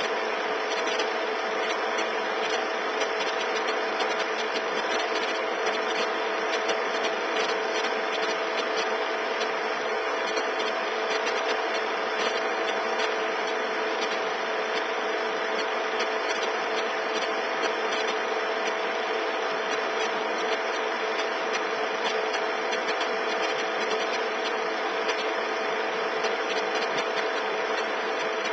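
Cine film projector running: a steady mechanical whirr with a constant hum and a fine rapid clatter, unchanging throughout.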